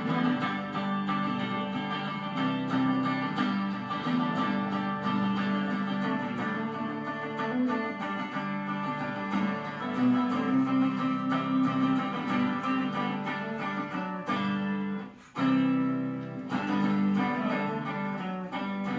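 Intro music played on guitar: strummed chords that keep going steadily, with a short break about fifteen seconds in.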